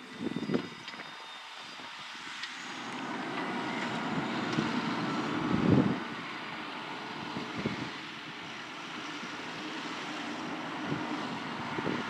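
Fendt 720 tractor's six-cylinder diesel engine running as it ploughs and turns on the headland. The engine noise builds as the tractor comes close and is loudest about six seconds in. A few short thumps of wind on the microphone.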